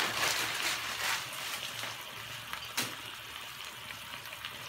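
Chicken breast fillets sizzling and crackling in a nonstick frying pan, a little louder in the first second, with one sharp click about three seconds in.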